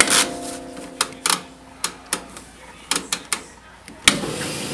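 A series of sharp clicks and knocks, about eight spread unevenly across a few seconds, with a ringing tone fading in the first second; a steady noise comes in near the end.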